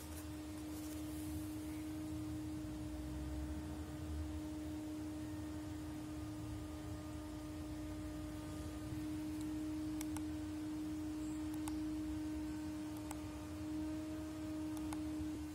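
A steady, pure held tone at one pitch with a faint overtone, over a low rumble, with a few faint clicks in the second half.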